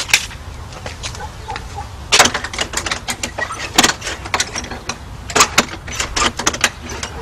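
Irregular sharp knocks and clicks, some in quick clusters, over a steady low rumble.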